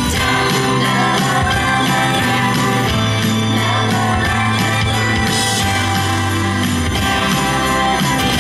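Christmas pop music with jingle bells.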